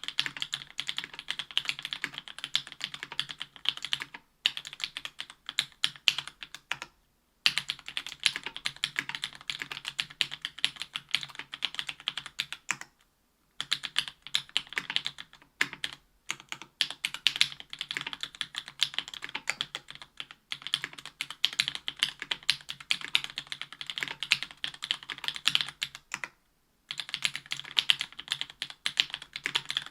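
Fast, continuous typing on a Special Whale mechanical keyboard with stock JWK Black 62 g linear switches, an aluminium plate and GMK keycaps: a dense clatter of keystrokes, broken by a few brief pauses.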